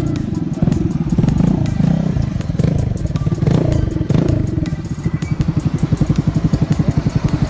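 Motorstar Easy Ride 150N scooter's single-cylinder engine through a Villain carbon muffler with its silencer removed: blipped on the throttle a few times, then settling about five seconds in to a steady idle with a rapid, even exhaust beat.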